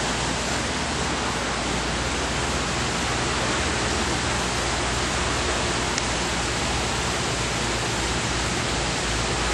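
Steady, even hiss of background noise, with one faint click about six seconds in.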